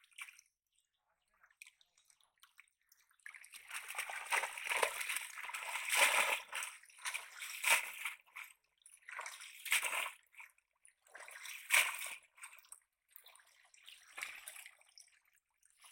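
Shallow water splashing and sloshing as fish thrash in a cast net being gathered in and lifted out. The splashing starts about three seconds in and comes in bursts roughly every two seconds.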